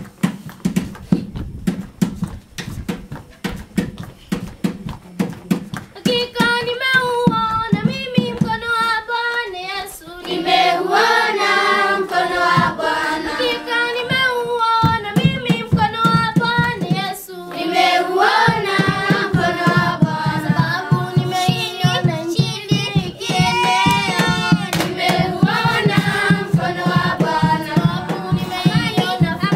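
Rhythmic hand clapping alone for about six seconds, then a group of children comes in singing a worship song together in unison, the clapping going on beneath the voices.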